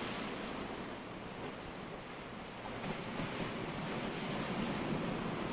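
A steady rushing noise like surf or wind, easing a little about a second in and swelling again after about three seconds.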